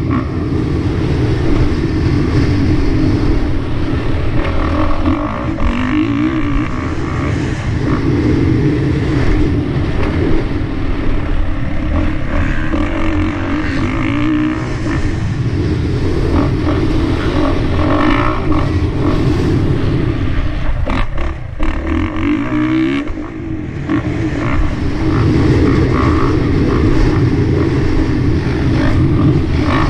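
450cc four-stroke motocross bike engine revving hard and changing pitch as the throttle opens and closes around a dirt track. It backs off briefly about twenty-one seconds in, then pulls hard again.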